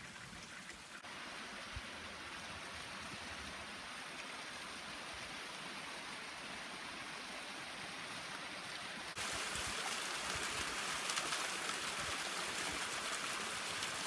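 Hot spring water running steadily over rocks, a continuous rush of flowing water that gets suddenly louder about nine seconds in, where a small waterfall spills into the soaking pool.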